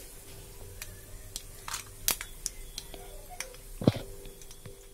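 Peanuts and cashews frying in a little hot oil with mustard seeds, chana dal and urad dal in a kadai: scattered sharp crackles and pops over a faint sizzle, with a louder pop about two seconds in and another near the end.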